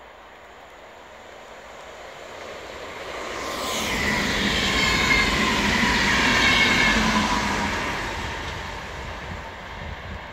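VR electric passenger train passing at speed: rail noise swells as it approaches, is loudest for a few seconds in the middle with a steady whine over the rumble of wheels on rail, then fades as it recedes.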